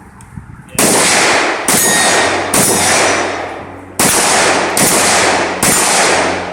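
Six carbine shots in two strings of three, about one shot a second with a short pause between the strings, each shot trailing off in a long echo.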